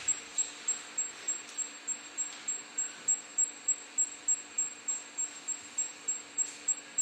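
Indutherm VC 650 V induction melting unit working, a high-pitched whine that pulses about three to four times a second over a faint steady low hum, as the induction field heats and stirs the molten metal in the crucible.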